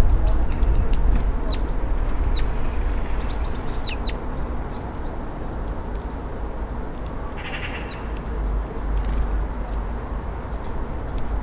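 A handful of short, high chirps from small songbirds, scattered through, over a steady low rumble that is the loudest sound.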